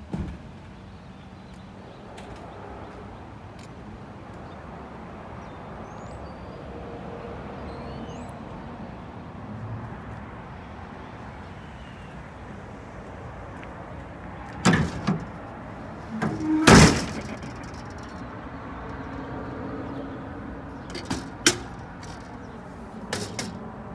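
Doors being shut with bangs and clanks over a steady low background: a knock at the start, a few knocks about fifteen seconds in, the loudest bang just after, and lighter clicks near the end.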